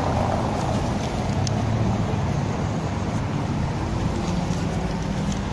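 Steady city street noise of traffic going by, with some wind on the microphone.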